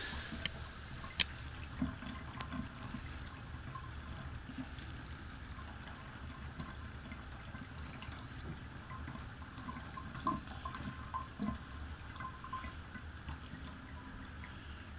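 Water trickling and dripping down a bathtub drain as it is flushed with hot water after a drain-cleaner treatment, faint and steady with many small scattered drips. The drain is now flowing freely.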